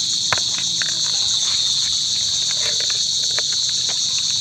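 Steady high-pitched chorus of crickets, with a few light clicks and taps scattered through it, the sharpest one just after the start.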